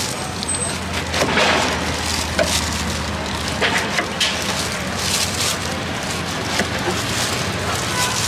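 Irregular clatter of sharp clicks and knocks over a steady low hum and general noise.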